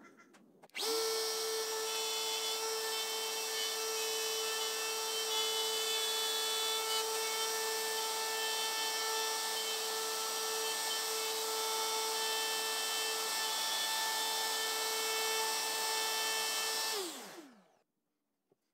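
Plunge router spinning up about a second in and running with a steady whine while it routes out the recess for a dovetail key in the jarrah tabletop, then winding down near the end.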